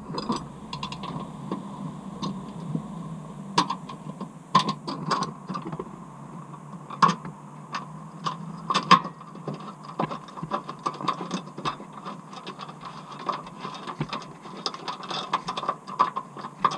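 Irregular metallic clicks and taps of hand tools on a bolt and washer while a tow-hitch bracket is bolted to a car's chassis rail, over a faint steady hum.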